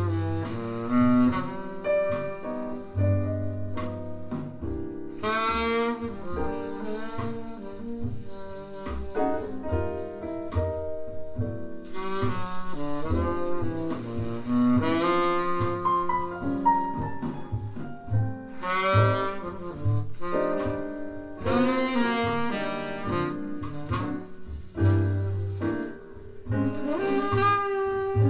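Jazz played through Bowers & Wilkins 706 S3 speakers: a saxophone melody over double bass, with light drum and cymbal strokes.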